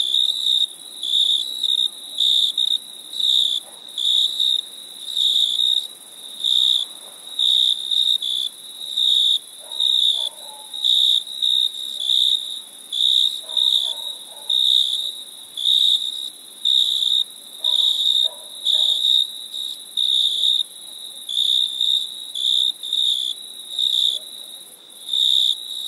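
Crickets chirping: a high-pitched chirp repeating in a steady rhythm, a little more than once a second, over a steady high hiss.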